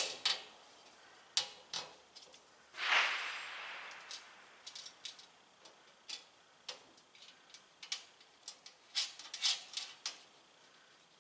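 Scattered light metallic clicks and taps of bolts, washers and nuts being handled and fitted by hand into the sheet-steel panels of a welding cart being assembled, with a brief scraping rattle about three seconds in.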